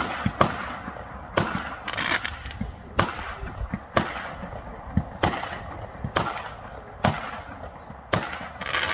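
Fireworks going off: sharp bangs about once a second, each trailing away, with a longer crackling burst about two seconds in and another near the end.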